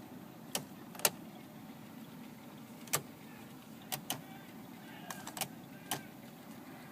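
About eight sharp clicks at irregular intervals over a steady low hum.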